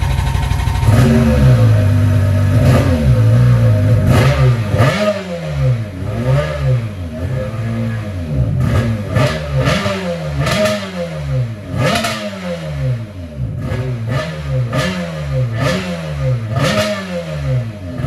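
A freshly rebuilt Rotax 951 two-stroke twin in a Sea-Doo RX DI jet ski runs out of the water, firing on both cylinders. It holds a steady fast idle for the first few seconds. From about five seconds in it is blipped repeatedly, roughly once a second, with the pitch rising and falling each time.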